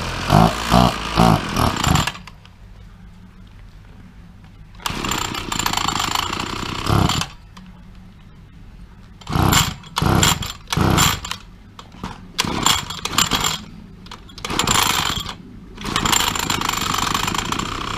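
McCulloch petrol strimmer's two-stroke engine running, dropping to a low idle between repeated revs: several quick blips in the first two seconds, then longer revs of a second or two each. It has just been started again after a spark fault was found, and is cold and being warmed up.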